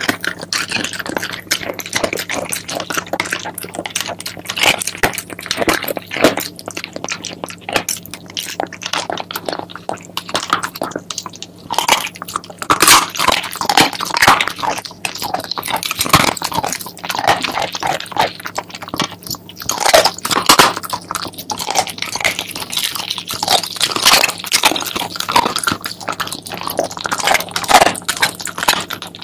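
Shiba Inu chewing raw chicken feet, crunching the small bones in a quick, irregular run of biting cracks that goes on without a break.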